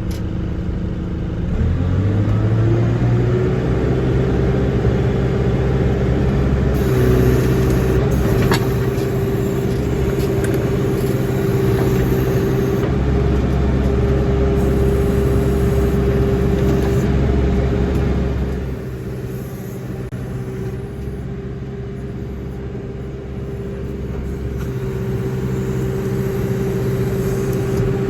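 John Deere backhoe's diesel engine revving up about two seconds in and then running steadily at high throttle while digging, quieter for a few seconds past the middle before building again.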